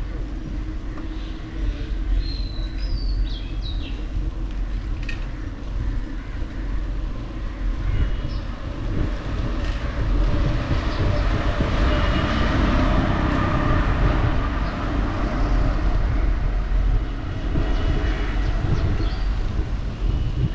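Street traffic and road noise heard from a moving bicycle, with a steady low rumble and a few short high chirps a couple of seconds in; the noise swells louder in the middle as traffic draws close.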